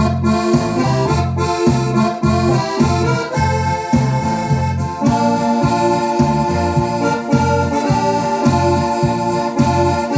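Electronic keyboard playing through an external speaker box: held chords over a steady, pulsing bass accompaniment, with the harmony changing about five seconds in.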